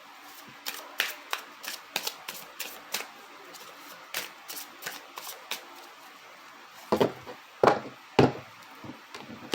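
Tarot cards being shuffled by hand: a run of quick card snaps, about three a second, then a few louder knocks near the end.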